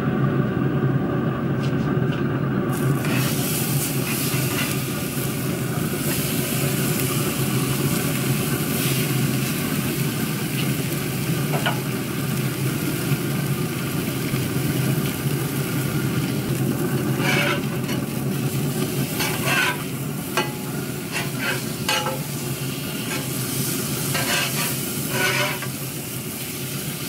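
Wagyu strip loin slices searing on a griddle plate at about 235 °C, sizzling steadily. From about two-thirds of the way in, a spatula clicks and scrapes on the griddle as the slices are turned.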